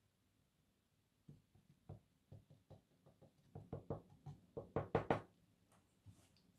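A quick run of light knocks, about a dozen and a half over four seconds, coming faster and louder toward the end: a paint stir stick being tapped against the painting table.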